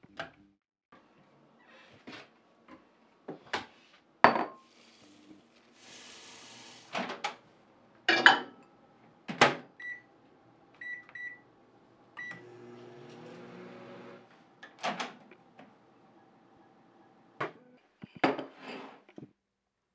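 Microwave oven keypad beeping four times as the cooking time is entered, then the oven running with a steady low hum for about two seconds. Around it comes a string of sharp household clicks and knocks and a brief hiss.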